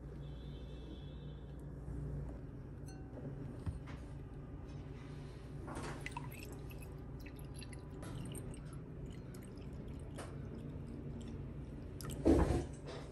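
Tea poured from a glass teapot into a glass tumbler: a thin stream of liquid splashing and trickling into the glass, with a few light clicks. A single louder knock comes near the end.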